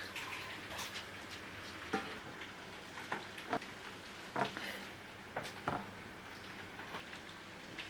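Faint, irregular small clicks and taps, about a dozen, over a low steady background hiss.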